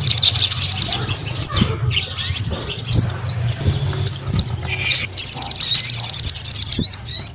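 A sogon songbird singing in full, energetic voice (gacor): fast chattering runs of high twittering notes broken by a few louder swooping whistles, with a short break near the end. A steady low hum runs underneath.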